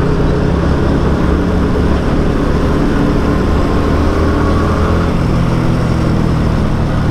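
Yamaha R15 V3 motorcycle's single-cylinder engine running steadily at road speed, heard from the rider's seat with road and wind noise.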